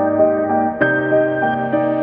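Background music: a soft, ambient melody of held notes over a bass line that changes chord about every second.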